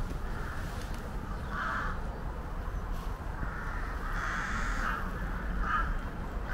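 Crows cawing repeatedly, harsh calls coming every second or so, one longer call about four seconds in, over a low steady rumble.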